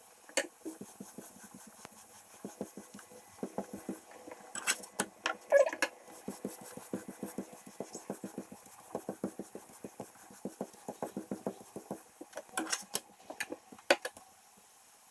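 Paratha cooking in ghee in a nonstick frying pan: a steady run of small crackles and rubbing as it is pressed down and worked in the pan, with a few louder knocks of utensils against the pan.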